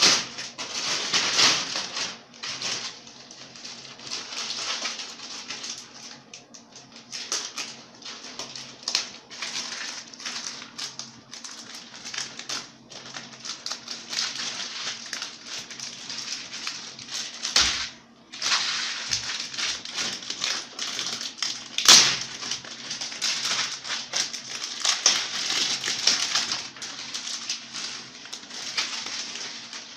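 Dense, irregular clicking and tapping over a steady rustle, with a louder knock about twenty-two seconds in.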